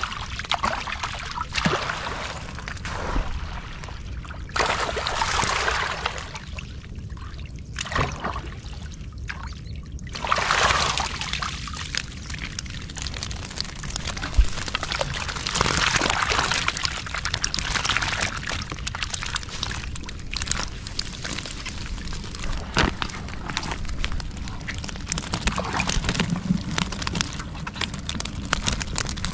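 Water sloshing and pouring off fish traps as they are lifted out of shallow water, in repeated surges a few seconds long.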